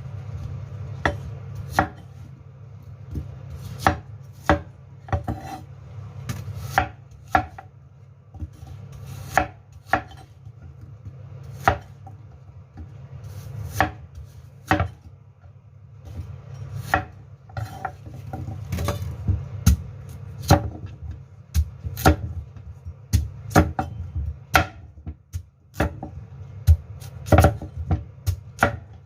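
Kitchen knife slicing Chinese pears on a cutting board: irregular sharp chops, roughly one or two a second, over a steady low hum.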